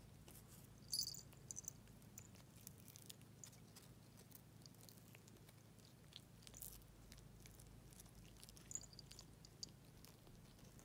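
Near silence with faint scattered clicks from a cat nosing and nibbling at a small fish, and a small collar bell tinkling briefly about a second in and again near the end.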